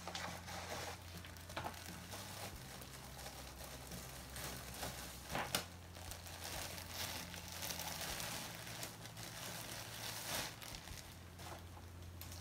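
Thin plastic packaging bag crinkling and rustling as a sweatshirt is unwrapped and pulled out, with a few sharper crackles, over a steady low hum.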